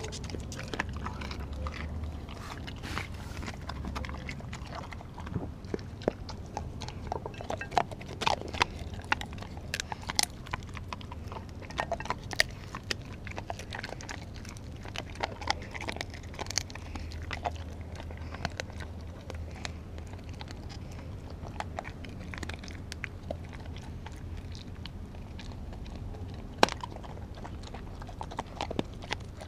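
Australian Kelpie chewing raw food with wet mouth sounds and irregular sharp crunches as it bites through a raw chicken foot; one crack near the end is louder than the rest. A low steady hum runs underneath.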